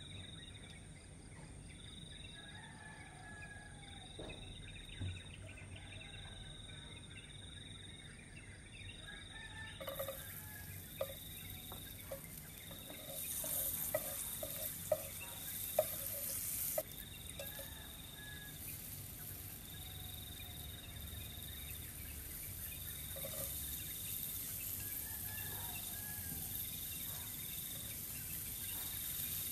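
Hot oil in a nonstick frying pan starts sizzling about a third of the way in as sliced garlic goes in, with several sharp clicks of a spatula against the pan. Behind it an insect chirps in evenly repeating pulses and birds call now and then.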